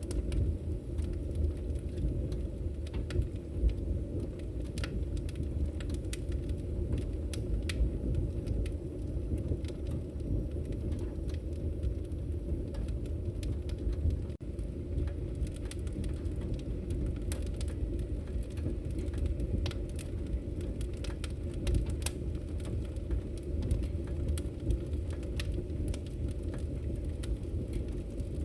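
Campfire burning: a steady low rumble with frequent sharp crackles and pops at irregular intervals.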